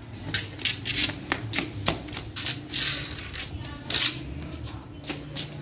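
Irregular sharp taps and clicks of a wooden stick knocking on a brick-paved floor, with a couple of brief scraping hisses around the middle.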